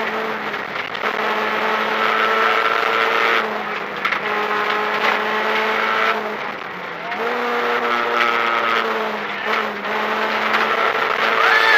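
Renault Clio rally car engine heard from inside the cabin, driven hard on a gravel stage. The engine note holds steady between short lifts, and its pitch dips and climbs again a few times as the gears change.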